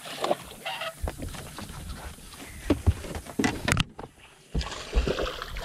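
Scattered knocks and thumps of gear being handled in a bass boat while a fish is landed with a net, the loudest about three seconds in and again near the end.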